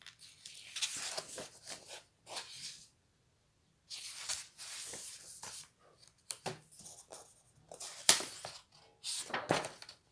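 Pages of a Creative Haven colouring book being handled and turned by hand: several bouts of paper rustling and sliding with short pauses between, and a sharp snap of paper about eight seconds in.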